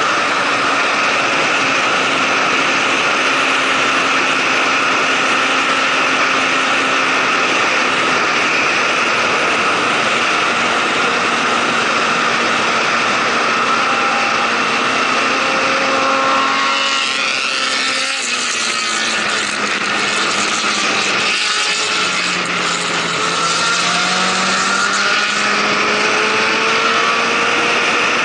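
Motorcycle engine and heavy wind rush at highway speed. Past the middle the engine note falls and breaks off briefly twice as the bike slows for a bend, then climbs again near the end as it speeds back up.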